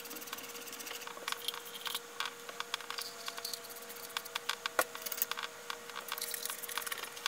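Scattered small metal clicks and light scraping as a silencer extension is handled and fitted onto the end of an air rifle's barrel, with a faint steady hum throughout.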